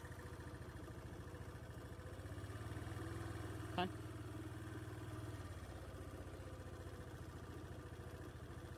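A vehicle engine idling steadily, with a slight rise in level for a few seconds in the middle. A single brief sharp click about four seconds in.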